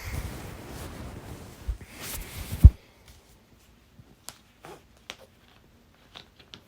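Rustling, handling-type noise close to the microphone, ending in one sharp, loud thump about two and a half seconds in; after that, quiet with a few faint scattered clicks.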